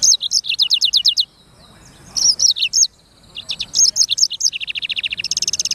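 Black-throated canary (blackthroat) singing: high, fast trills and chirping notes in three phrases separated by short pauses, the last phrase ending in a rapid trill.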